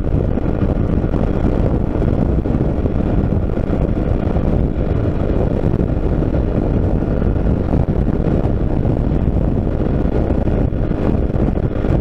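Motorcycle riding at highway speed: a steady rush of wind on the microphone with the engine running evenly underneath, unchanging throughout.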